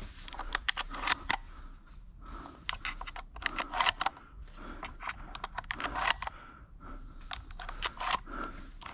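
Footsteps crunching through dry leaf litter, coming in irregular clusters of crackles and rustles.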